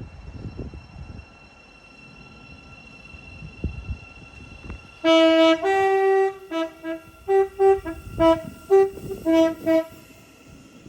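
Train's two-tone horn: a long low note, then a long higher note, then a quick run of about ten short toots switching between the two pitches, like a tune. Before it comes about five seconds of low rumble with a thin steady high whine.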